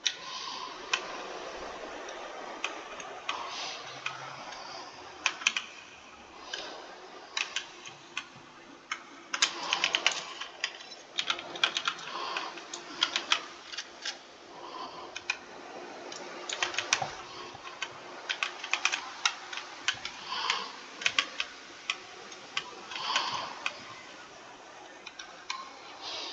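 Computer keyboard being typed on: irregular runs of key clicks, with quicker bursts and pauses and an occasional louder, deeper keystroke.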